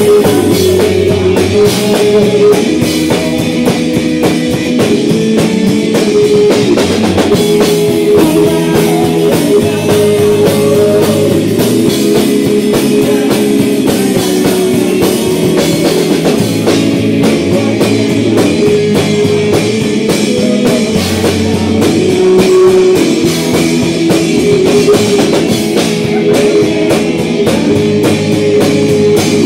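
A live rock band playing loudly: electric guitars, bass guitar and a drum kit.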